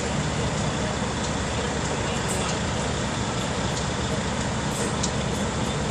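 Semi-truck's diesel engine running steadily.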